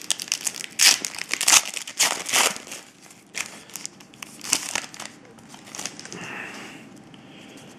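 Foil trading-card pack wrapper crinkling and crackling as it is handled and crumpled, busy for the first few seconds and then thinning out and dying away near the end.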